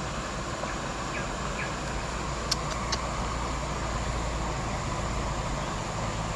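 Steady rush of running water from a stream's rapids, a constant hiss with a low rumble underneath; a couple of small, faint clicks midway.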